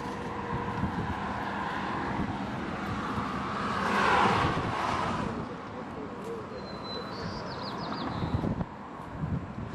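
Outdoor traffic noise, with a vehicle passing that swells and fades about four seconds in. A bird gives a short, fast, high trill near the middle.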